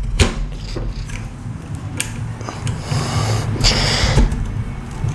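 Metal gun parts being handled and hand-tightened on a shotgun's AR buffer tube assembly: a few sharp clicks and two short scraping rubs, over a low steady hum.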